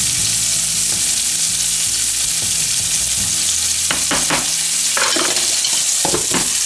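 Meat sizzling steadily in bacon grease in a cast-iron skillet, with a wooden spoon stirring grits in a pot. In the second half come several sharp knocks of the spoon and a lid being set on the pot.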